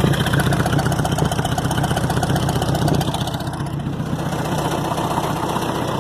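Skid steer engine idling steadily.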